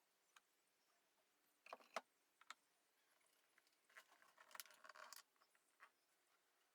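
Near silence: room tone with a few faint clicks about two seconds in and a brief faint rustle a little after the middle.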